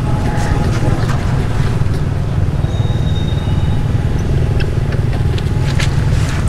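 Steady low rumbling noise, with faint scattered clicks and a brief thin high tone about three seconds in.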